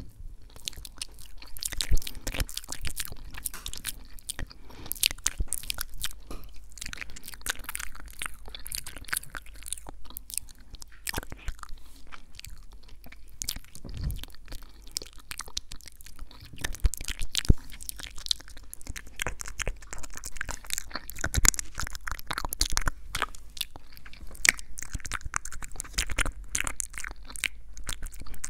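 ASMR mouth sounds close to the microphone: a dense, irregular run of short wet clicks and smacks.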